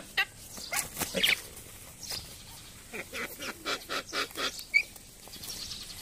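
A red-billed blue magpie and a crested myna fighting: a string of short bird calls mixed with wing-flapping scuffles, with one brief high chirp toward the end.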